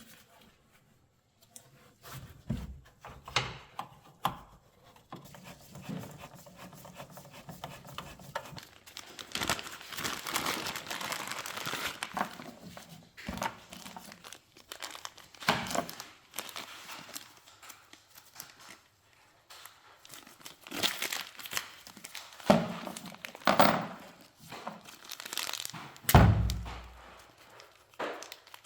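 Hands working a rubber tailgate dust seal into place: rustling, scraping and scattered knocks, with a longer stretch of rustling about ten seconds in and a heavy thump near the end.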